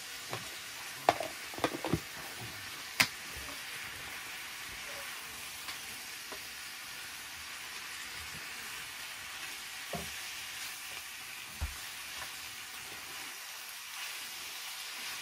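Pork and aged kimchi sizzling steadily in a frying pan on a portable gas burner while being stirred, with a few sharp clicks and knocks in the first three seconds, the loudest about three seconds in, and two more later on.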